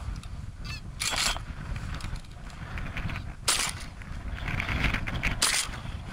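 Wind buffeting the microphone while geese call overhead, broken by three short sharp cracks about one, three and a half and five and a half seconds in, the middle one the loudest.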